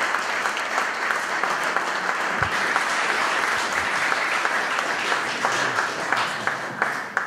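Audience applauding: many people clapping in a steady patter, easing off near the end.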